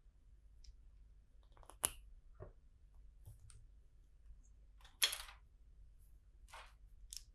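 Faint, sparse clicks and scrapes of plastic LEGO pieces being handled: a sharp click about two seconds in, a louder scrape about five seconds in, and two lighter ones near the end.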